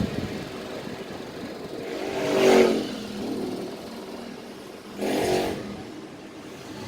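Steady running of a Daikin FTNE25MV14 1 PK split air conditioner's indoor unit, which is vibrating. A vehicle engine swells and fades past about two and a half seconds in, and a shorter engine swell follows around five seconds in; these passes are the loudest sounds.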